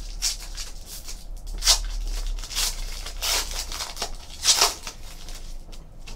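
Foil trading-card pack being torn open by hand, the wrapper crinkling in a series of short rips, two of them sharper and louder than the rest.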